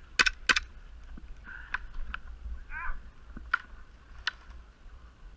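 Two sharp airsoft gun shots in quick succession near the start, followed by scattered fainter pops and clicks. A brief call with a rising-and-falling pitch comes about halfway through.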